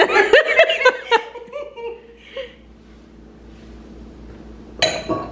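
A woman laughing and giggling for about two seconds, then a single sharp clink of glass near the end.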